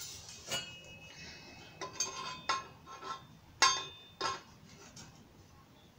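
Metal barbecue grill leg tubes and parts clinking and knocking against each other as they are fitted together: several sharp metallic clinks with a short ring, the loudest about three and a half seconds in.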